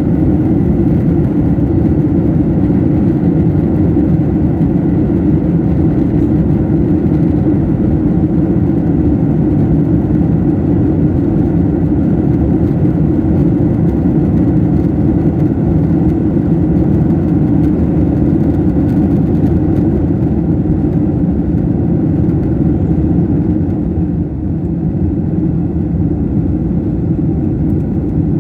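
Steady low cabin drone of a passenger plane's engines and rushing airflow during the climb after takeoff, heard from inside the cabin.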